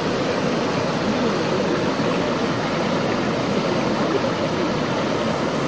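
Shallow mountain stream running over rocks, a steady, even rush of water.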